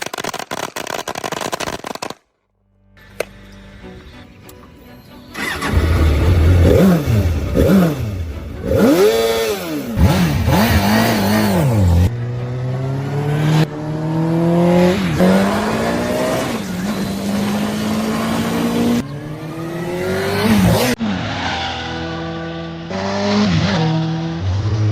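Rebuilt 2001 Suzuki GSX-R750's inline-four engine revved a few times, then accelerating hard with pitch climbing and dropping back at each upshift, about five gear changes in a row, before easing off and revving again near the end.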